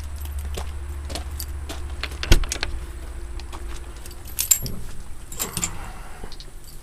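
Metallic jingling and clicking, like loose keys being handled, with a sharp knock about two seconds in and more rattling clicks later, over a steady low hum.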